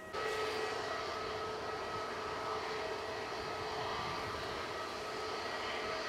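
Jet airliner engines running on the ground: a steady rush with a few held whining tones.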